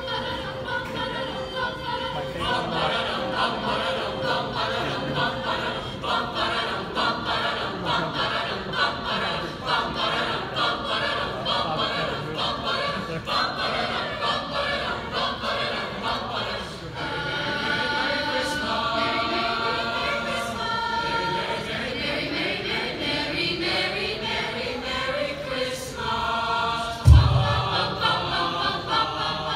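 Teenage choir of boys and girls singing a Christmas carol together. Near the end there is a brief low thump.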